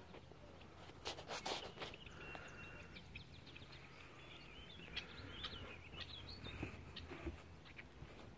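Birds chirping faintly in short calls, with a few soft knocks about a second in.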